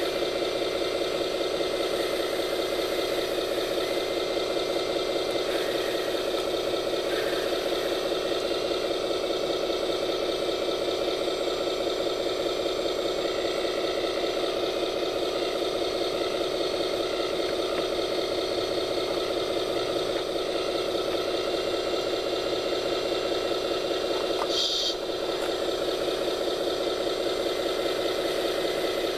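A scale RC construction machine running steadily with an engine-like idle and a light rattle. A short high beep sounds near the end.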